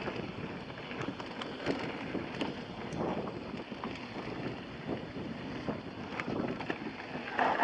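Mountain bike descending a dirt singletrack: wind rushing over the helmet or handlebar camera's microphone and tyres rolling on the dirt. Scattered sharp clicks and rattles come from the bike over bumps, with a louder burst of noise near the end.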